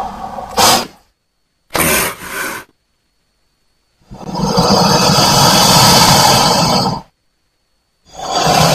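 Crocodile calls played one after another with dead silence between them: a short burst, then a two-part burst, then a longer, noisy call lasting about three seconds, and another call beginning near the end.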